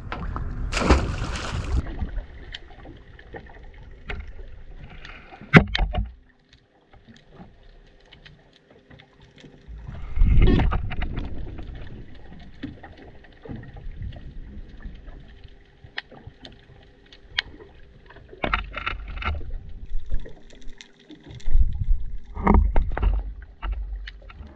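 A submerged action camera's muffled underwater sound: swelling low rushes of moving water, scattered sharp clicks and crackles, and a faint steady hum. In the first seconds, before the camera is under water, a short burst of noise comes as a small fish is tossed back into the sea.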